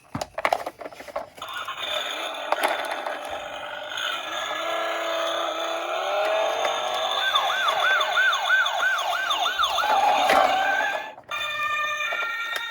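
Electronic toy police car sirens sounding together, several siren patterns overlapping, with a fast rising-and-falling yelp about three times a second in the later part. A few clicks and knocks come first, and near the end it changes suddenly to a different siren of stepped tones.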